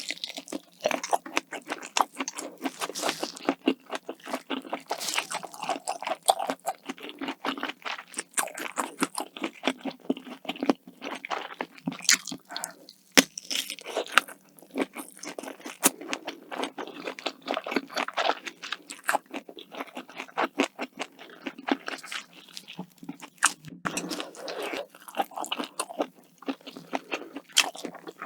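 Close-miked eating sounds: a continuous run of crunchy bites and chewing.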